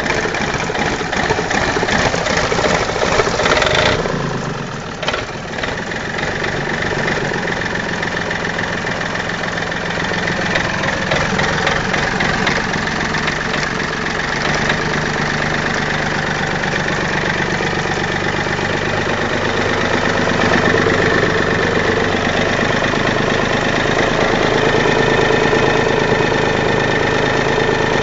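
Yanmar 3JH three-cylinder marine diesel engine running on a test run. It briefly dips about four seconds in, then runs on steadily, a little louder in the second half.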